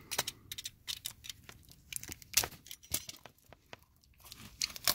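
Plastic shrink-wrap on a card deck being slit with a utility knife and torn off by hand, crackling and crinkling in irregular snaps, the sharpest about two and a half seconds in.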